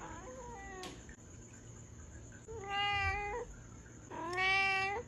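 A cat meowing: a faint falling call at the start, then two clear meows, about two and a half seconds in and near the end. The last is the loudest and longest.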